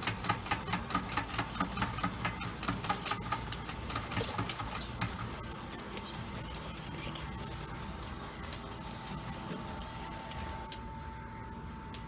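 Coin pusher machine clattering, with rapid clicks of metal tokens at about three or four a second for the first five seconds. After that, a steadier mechanical hum with a faint steady tone.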